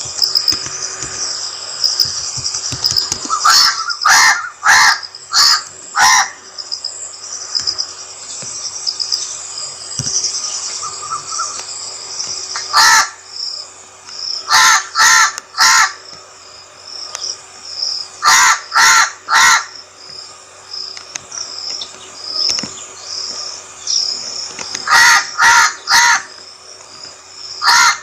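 Crow cawing in runs of three to five harsh caws, several runs with pauses between, over a steady high buzz of insects.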